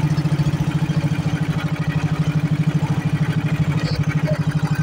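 Small engine running steadily at a constant speed, with a rapid, even pulse.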